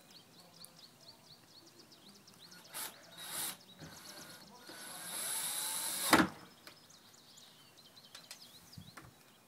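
Cordless drill driving a screw to fix a planter's metal mounting bracket to the wall. Two short spurts come first, then a longer run that rises and ends in a sharp knock as the screw seats.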